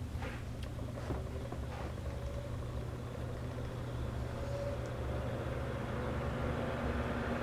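Vintage Robbins & Myers Hunter 12-inch oscillating table fan running on high speed: a steady motor hum with rushing air from the blades, growing slowly louder. A few light clicks sound in the first couple of seconds.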